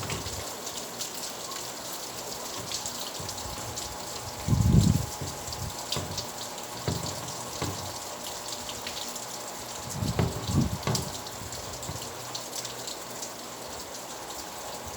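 Steady rain falling, a continuous hiss full of fine drop ticks. Two brief low rumbles stand out above it, about five and ten seconds in.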